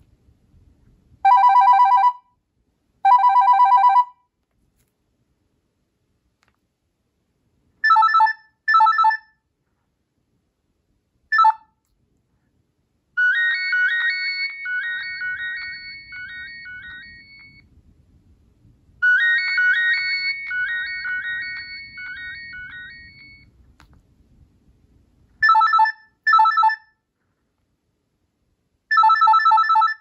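Nokia 3650 playing previews of its built-in desk-telephone ringtones through its small speaker: two long electronic rings, then short double rings, then two warbling trilled rings of about five seconds each, and more short double rings near the end.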